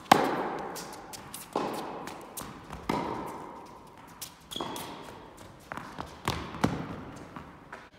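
Tennis rally: sharp pops of the racket hitting the ball and the ball bouncing on the court, about every one and a half seconds, each echoing through a large indoor hall. The loudest pop comes right at the start.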